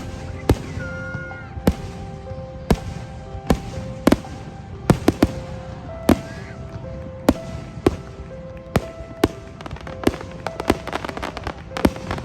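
Fireworks bursting in the sky: a string of sharp bangs about one every half second to a second, coming thicker and faster near the end. Music with held melody notes plays over them.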